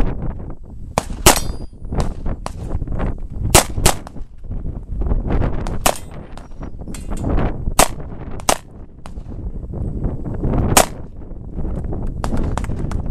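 Handgun shots fired in an uneven string through a practical shooting stage, about fifteen in all, some close pairs and some with pauses between. A brief metallic ring follows one of the early shots, typical of a steel target being hit.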